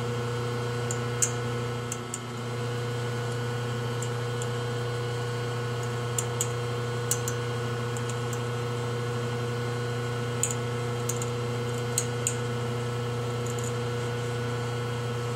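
Steady low machine hum with faint, sharp ticks scattered through it, about ten in all, as the point of a hobby X-Acto knife picks rollover burrs out of the grooves between a starter armature's copper commutator segments. The burrs are cleared because they would short the segments.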